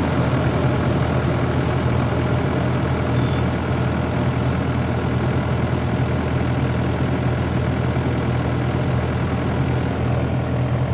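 Rice combine harvester running steadily, its engine and threshing machinery making a constant low hum.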